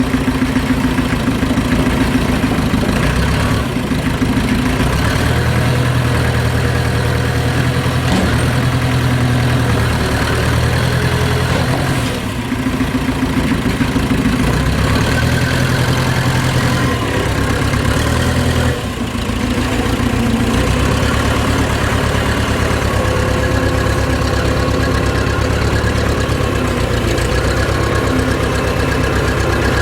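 Case 580CK backhoe loader's engine running, its low note shifting a few times, with short dips in loudness about twelve and nineteen seconds in.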